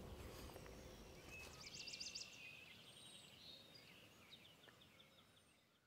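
Faint woodland ambience with small birds calling: a run of quick high chirps about a second and a half in, and a thin trill of short notes near the end, all fading out to silence.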